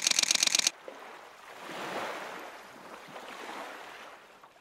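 Camera shutter firing in a rapid continuous burst, about a dozen frames a second, that stops under a second in. A soft rushing hiss follows, swelling twice and fading.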